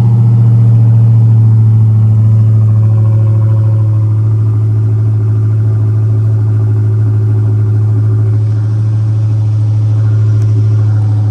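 Dodge Charger SRT Hellcat's supercharged 6.2-litre Hemi V8 running at a steady, loud fast idle just after a cold start, easing a little about eight seconds in.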